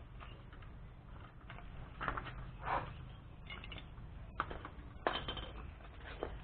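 Irregular metal clinks and scrapes of a pipe wrench gripping and turning a hand pump's riser pipe joint, with a sharper knock about five seconds in.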